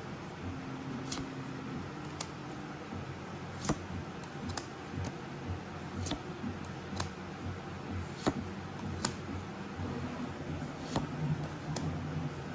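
Pokémon trading cards being handled and flipped through one by one: short, light clicks and snaps of card edges, roughly one a second, over a low steady room hum.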